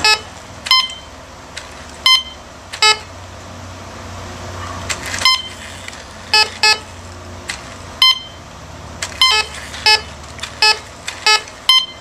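Teknetics Alpha metal detector giving about a dozen short, irregularly spaced beeps. The high-pitched beeps are coin signals; the lower-pitched ones are false signals from the concrete or from interference by the R/C controller.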